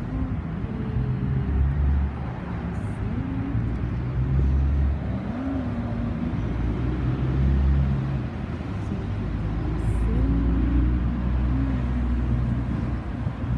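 Road traffic going by on a city street, with a low rumble from wind on the microphone that swells and fades every few seconds.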